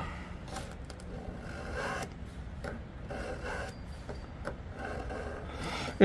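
Pocket-knife blade being drawn through a handheld pull-through knife sharpener in about five rasping strokes. The sharpener bites easily, a sign of soft, cheap blade steel, which the owner takes for 7Cr17 or 5Cr15.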